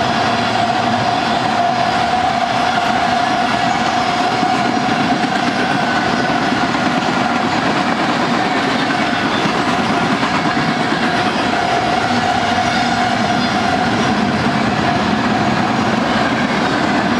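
Freight train of tank cars rolling past at close range, steel wheels on the rails making a steady, unbroken rolling noise with a steady ringing tone running through it.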